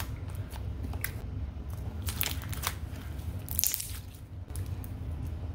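Clear slime with flower pieces mixed in, squeezed and stretched between the hands and giving scattered sharp pops and clicks, with a longer crackle about three and a half seconds in.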